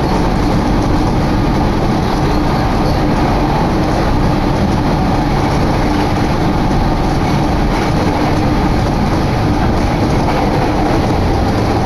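Electric commuter train on the Kagoshima Main Line running at speed, heard from inside the passenger car: a steady, even noise of wheels on rails with a faint hum.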